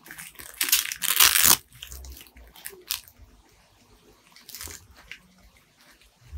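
Crinkly rustling from a plush dog toy squeezed and handled, in several bursts, the loudest about a second in and shorter ones later.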